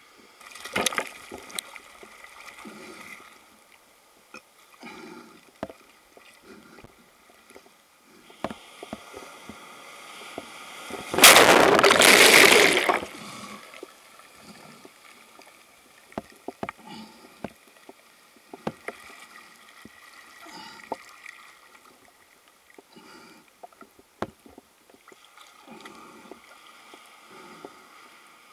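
Churning surf sloshing and splashing right at the camera as it is carried at the water's surface through breaking waves, with scattered sharp knocks. About 11 seconds in a loud rush of water lasts about two seconds.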